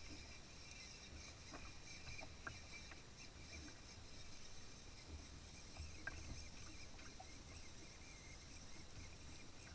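Faint, low-level background: soft gusts of wind rumbling on the microphone over a steady high hiss, with a few small, faint clicks.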